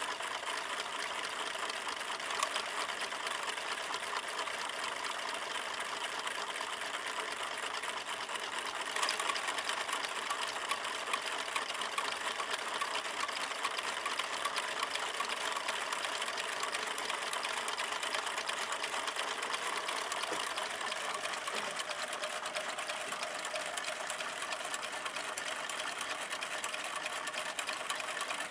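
Homemade drink-can Stirling engine running on candle heat, its wire crank and linkage making a rapid, steady mechanical clatter.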